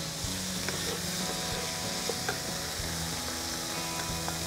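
Pork slices sizzling in hot oil in a wok: a steady frying hiss, with a wooden spatula stirring and scooping and a few light clicks as meat is lifted out into a ceramic bowl.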